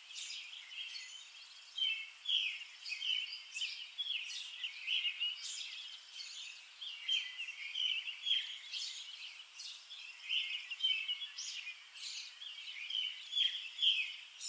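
Small birds chirping and singing, a steady run of short high calls one after another.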